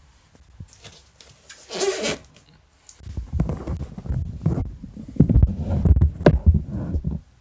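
Packaging being handled and opened: a brief ripping sound about two seconds in, then a run of bumps, knocks and rubbing with a sharp click near the end.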